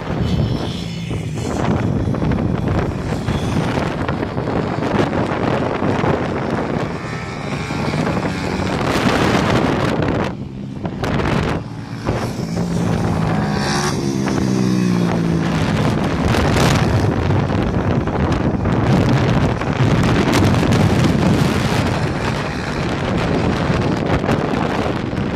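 Ohvale GP-0 160 mini motorbikes' single-cylinder four-stroke engines revving and changing pitch as the bikes lap the track, with heavy wind buffeting on the microphone throughout. The engine note is clearest as a bike comes close near the middle, rising and falling as it passes.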